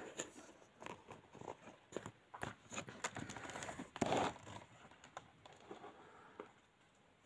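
Faint rustling and small knocks of things being handled close to the microphone, with a louder rustle about four seconds in.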